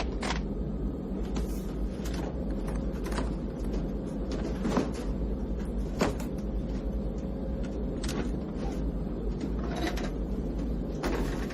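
Steady low drone of an airliner cabin in flight, with light clicks and knocks every second or so.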